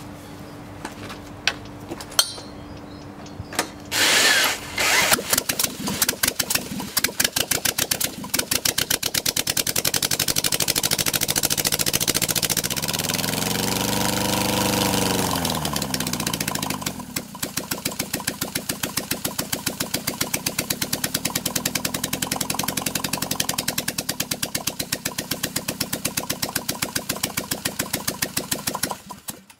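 VW four-cylinder engine on a stand, with the PCV port on its intake left unplugged, catching about four seconds in and then running with rapid, sharp firing pulses. It is revved up and back down about halfway through, runs on unevenly, and cuts off suddenly just before the end.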